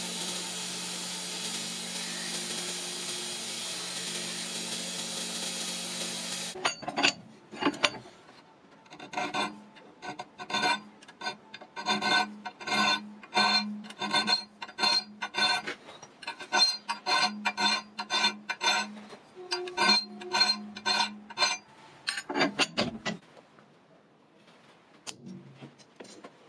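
Belt grinder running steadily with a steel knife blade held against the belt, stopping suddenly about a quarter of the way in. Then a hand file rasps across the edge of a steel knife blank in repeated strokes, about two a second, until a few seconds before the end.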